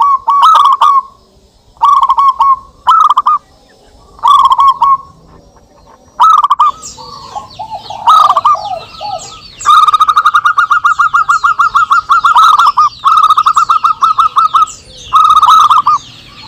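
Zebra doves (perkutut) cooing back and forth in short bursts of rapid, rhythmic notes. About halfway through the phrases lengthen into long runs of evenly spaced notes. Thin, high chirping from other small birds runs beneath.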